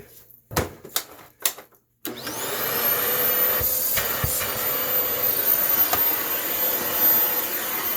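Fantom Lightning canister vacuum switched on: a few clicks, then about two seconds in the motor starts, its whine climbing quickly to full speed, and it runs steadily and loudly.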